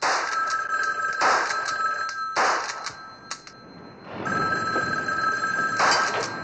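Telephone bell ringing, two long rings with a short break between them.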